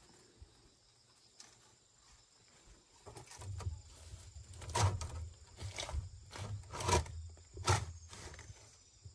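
Long split-bamboo strips dragged and laid along fence stakes, rustling and clattering, with several sharp clacks from about the middle on over a low rumble.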